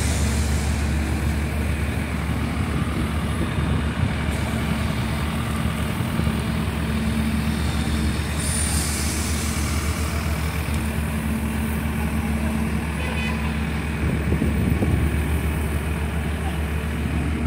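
Asphalt distributor truck running steadily at a constant pitch while tar is sprayed from its hand lance, with a brief hiss about eight and a half seconds in.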